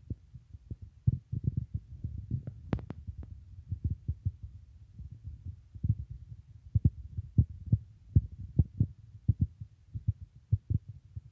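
Domestic rabbits chewing parsley close to the microphone: an uneven run of soft, low crunching thumps, several a second, with a few sharper clicks.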